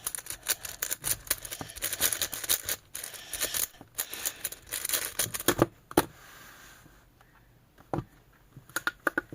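Plastic 7x7 Rubik's cube being turned, the layers clicking and rattling in a fast, dense run for about six seconds, then going nearly quiet with a few single clicks near the end.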